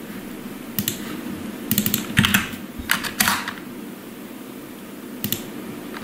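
Computer keyboard keystrokes, coming in a few short clusters of clicks.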